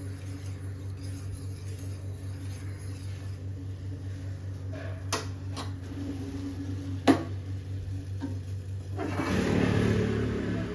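Kitchen sounds over a steady low hum: a few sharp clinks of kitchenware about halfway through, the last one the loudest, then liquid being poured near the end.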